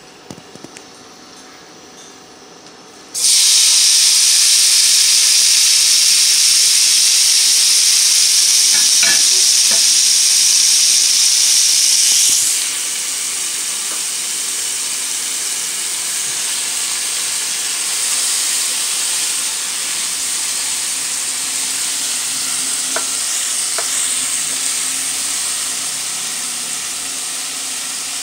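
Raw shrimp hitting hot oil in a stainless steel frying pan, breaking into a loud sizzle about three seconds in. The sizzle eases a little after about twelve seconds and carries on steadily while the shrimp are turned with a wooden spatula.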